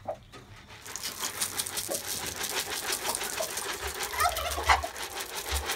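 Poultry feed pouring into a feeder, a rapid rattling clatter that starts about a second in.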